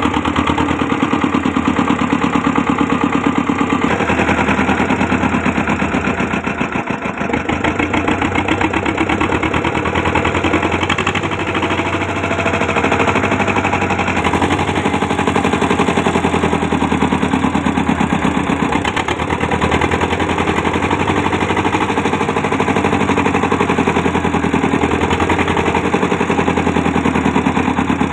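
Petter stationary diesel engine, rated 30 HP, running steadily at idle with an even, rapid exhaust beat. Its drive belt is off, so it is turning over without load.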